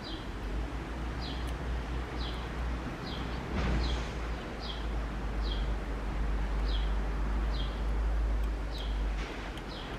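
A bird calling over and over, a short falling chirp about once a second, over a steady low rumble. A brief rushing noise swells about three and a half seconds in.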